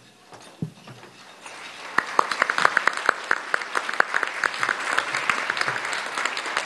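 Audience applauding: after a quiet start with one soft knock, clapping begins about a second and a half in and quickly fills out into steady, dense applause.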